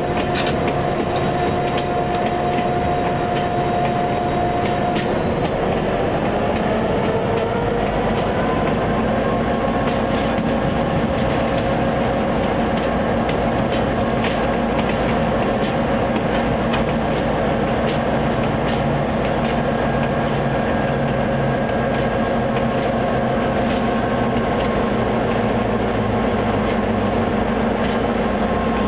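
EMD SD50 diesel-electric locomotive running under way with its train, its 16-cylinder two-stroke engine and traction motors giving a steady note that rises in pitch about five seconds in and then holds. Wheels click over the rail joints.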